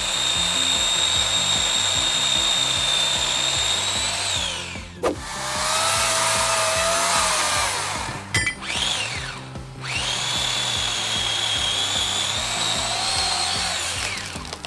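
Electric chainsaw running in two long bursts: its high, steady whine spins up, holds, and winds down about four seconds in, then runs again from about ten seconds in, dipping in pitch under load before winding down near the end. Between the bursts comes a rougher, noisier stretch. Background music plays underneath.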